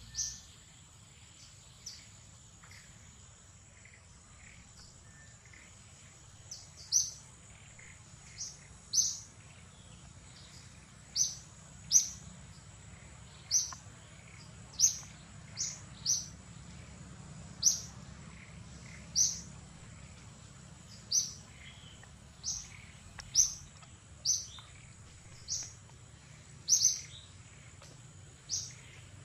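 A bird repeating a short, high chirp every second or so, over a steady high-pitched insect drone.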